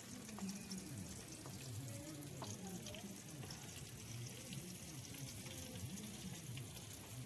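Food frying in a pan, a steady sizzle with fine crackling.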